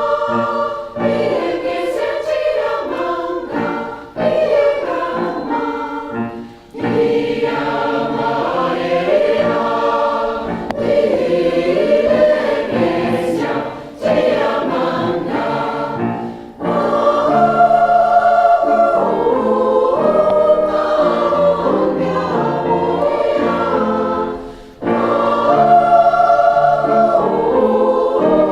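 Community choir singing in full harmony, in Mende, phrase after phrase with short breaks between phrases.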